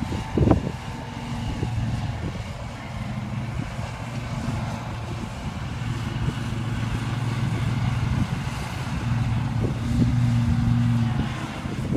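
Zero-turn riding mower's engine running steadily while mowing, a low hum that grows louder for a few seconds near the end. A brief thump about half a second in.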